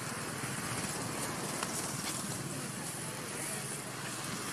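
Steady outdoor background noise with faint voices of people talking in the background.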